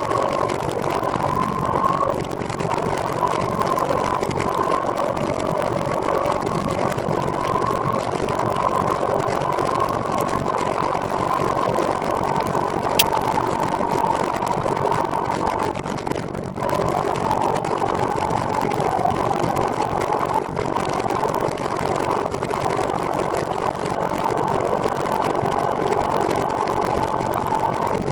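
Steady whir of a recumbent trike being ridden: tyres and drivetrain rolling along, with a wavering whine over it.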